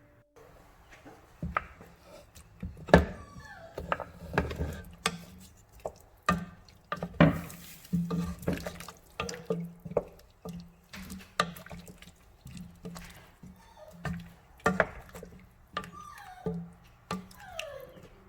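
Water running and splashing at a kitchen sink, with irregular knocks and clinks.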